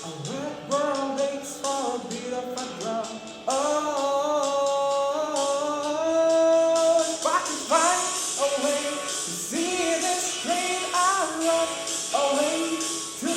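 A pop-rock song with a voice singing a melody over a full band, with held notes and cymbals.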